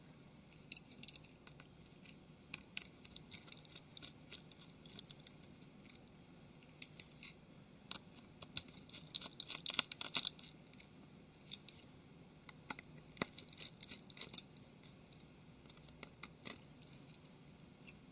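Small, irregular clicks and taps of hand work on a Samsung Galaxy Mega 6.3 during disassembly: a small Phillips screwdriver and tiny screws against the phone's plastic housing, busiest around the middle.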